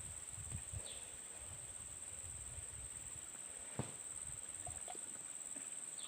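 Steady, high-pitched insect chorus, one unbroken trill, with a single sharp tap nearly four seconds in.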